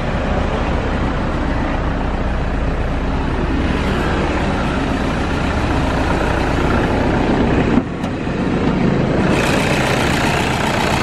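Toyota Innova's turbodiesel engine idling steadily, running smoothly after standing unused for about two years.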